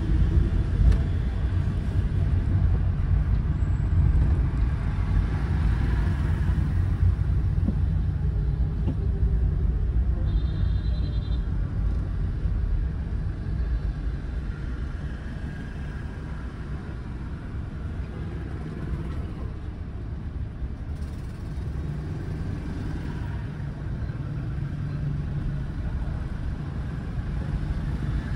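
Steady low rumble of a car driving in city traffic, easing off in the middle as it waits at a red light and picking up again near the end. A brief high beep sounds about ten seconds in.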